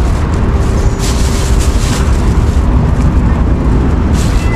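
Boat's outboard motor idling, a steady low rumble.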